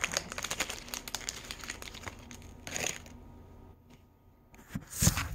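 Small plastic toy baggie crinkling and crackling as it is pulled and torn at to get it open, with a quieter pause about three seconds in and a loud crackle near the end.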